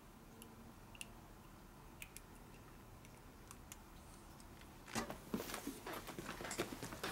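Faint scattered clicks of small metal lifter parts being handled by hand, then about five seconds in a louder flurry of knocks and rustling.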